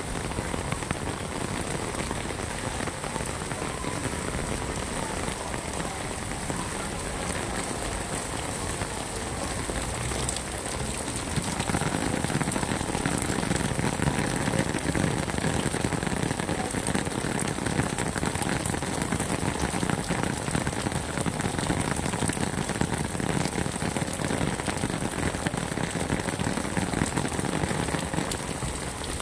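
Heavy rain falling on red sandstone paving, a dense steady hiss of splashing drops that grows louder about eleven seconds in.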